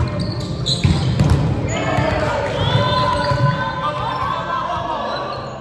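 Indoor volleyball rally: sharp thuds of the ball being struck, then players calling out over one another for the last few seconds.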